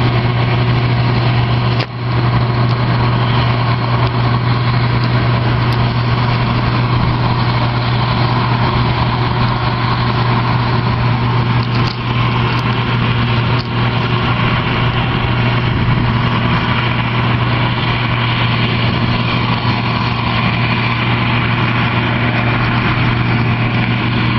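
Diesel engine of harvest machinery running steadily, with a constant low hum, broken by a brief dip about two seconds in.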